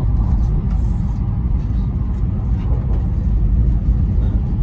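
Steady low rumble of a high-speed train running at speed, heard inside the passenger cabin.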